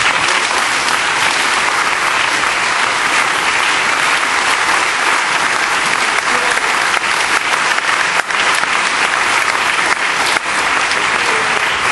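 Audience in a packed hall applauding steadily, many hands clapping at once.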